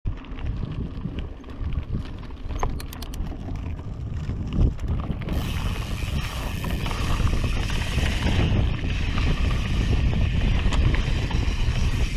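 Mountain bike rolling downhill over gravel and then dirt singletrack: tyre rumble and frame rattle under wind buffeting the action camera's microphone. A sharp knock comes about four and a half seconds in, and the hiss grows brighter about five seconds in.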